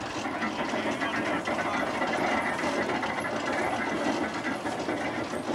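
Horse-driven threshing machine running, a steady dense mechanical clatter and rattle of its gearing and drum.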